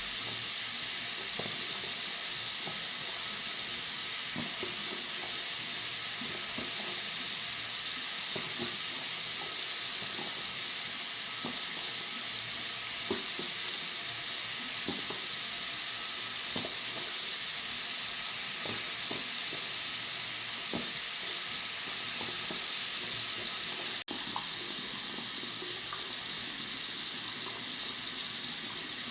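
Tap water running steadily into a bathroom sink: an even, hissing rush with small splashes, used as a mid-frequency tinnitus masking sound. It breaks off for an instant about five seconds before the end.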